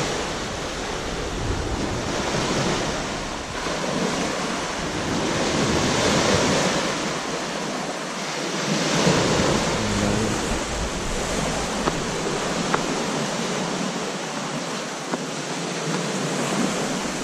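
Small waves washing onto a sandy, rocky shore, the surf swelling and easing every few seconds, with wind on the microphone. A few small clicks in the second half.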